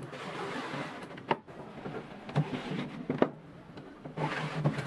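A wooden fold-out table board sliding out of a wooden box frame: wood scraping on wood, with two sharp knocks, about a second in and again past three seconds.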